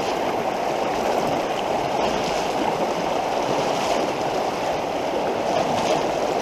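Fast, flooded creek water rushing past in a steady, even roar.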